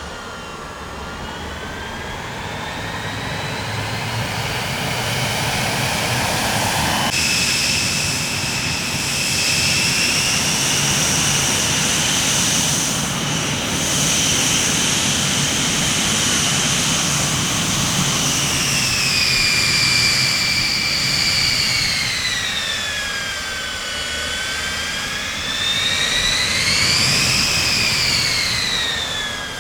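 Jet aircraft engines running: a high turbine whine over a steady rush, the whine sliding slowly down and up in pitch, with a brief rise and fall near the end.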